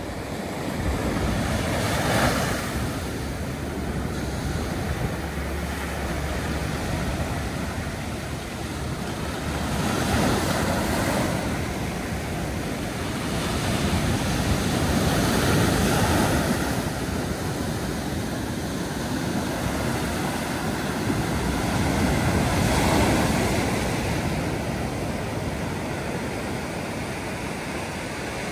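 Sea surf breaking and washing up the beach, swelling up about four times as waves come in, with some wind rumbling on the microphone.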